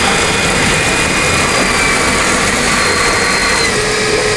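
Water gushing from three taps and splashing into a glass tank, fed by a variable-speed booster pump. Over the splashing there is a faint high whine that dips slightly near the end.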